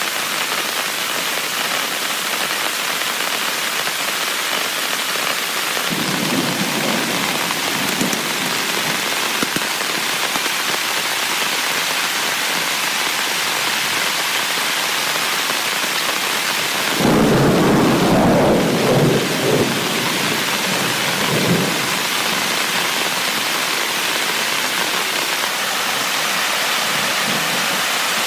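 Heavy rain falling steadily throughout. A faint rumble of thunder comes about six seconds in, and a louder, deeper thunder rumble lasting a few seconds comes just past the middle, the loudest thing here, with a smaller rumble after it.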